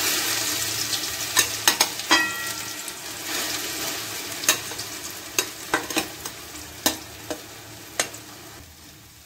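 Grated elephant foot yam (ol) sizzling in hot oil in a metal kadai, the hiss dying down over several seconds, while a metal spatula stirs it with a scatter of sharp scrapes and clicks against the pan, one ringing briefly about two seconds in.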